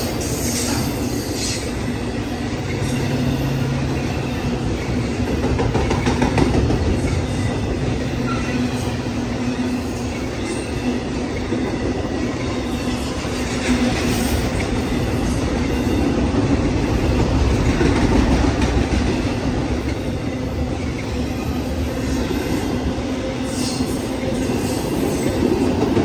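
BNSF intermodal freight train's container-laden well cars rolling past close by: a continuous rumble of steel wheels on rail, with a few brief sharp clanks.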